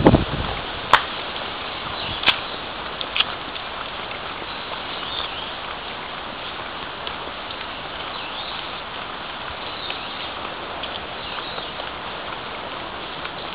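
Shallow water running over the bed of a narrow concrete irrigation channel, a steady, even rush, with a few sharp clicks in the first few seconds.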